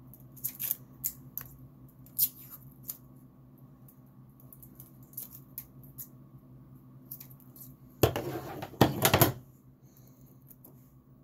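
Scissors and a roll of heat tape being handled: a scatter of light clicks and snips, then a loud rasping burst in two parts lasting over a second, about eight seconds in, as the tape is pulled off and cut.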